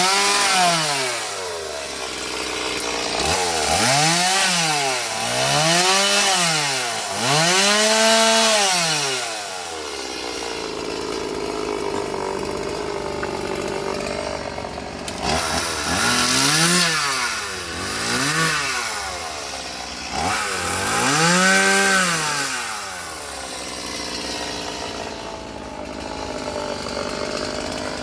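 Chainsaw revving up and dropping back again and again, about seven times in two groups, and running at a lower steady speed in between.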